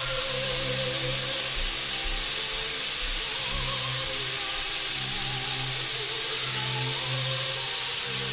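Steam hissing steadily out of a stovetop pressure cooker's vent under its whistle weight: the cooker is up to pressure and venting.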